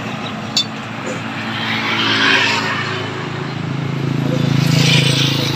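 A motor vehicle's engine passing by: it grows steadily louder to a peak about five seconds in, then begins to fade. A single sharp click comes about half a second in.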